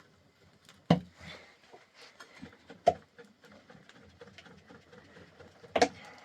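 Three sharp knocks about two to three seconds apart, with faint small clicks and taps between them.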